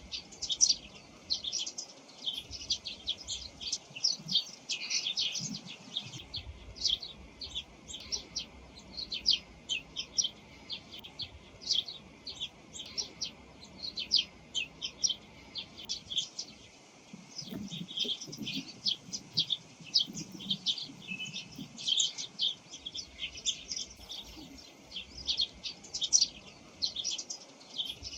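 Eurasian tree sparrows chirping: a steady stream of short, high "chun" calls, many following in quick succession and overlapping, mixing their simple calls and song.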